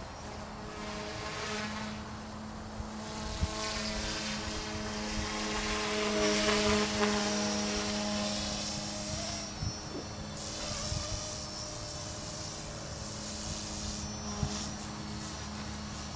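Goosky Legend S1 electric RC 3D helicopter flying: a steady motor whine and rotor buzz that shifts in pitch as it manoeuvres. It grows loudest about halfway through as the helicopter passes low and close.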